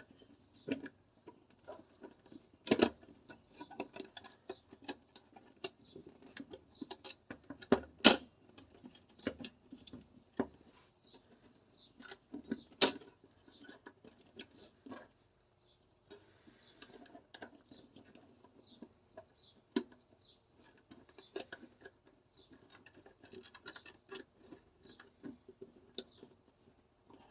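Parts of a 2011 Combat Master airsoft pistol being handled and fitted back together: irregular clicks, taps and light scraping, with a few sharper clacks, the loudest about eight seconds in.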